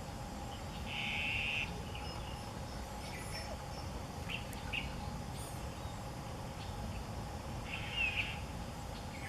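Birds calling against a steady outdoor background: two short buzzy calls, one about a second in and one near the end, with a few faint chirps between them.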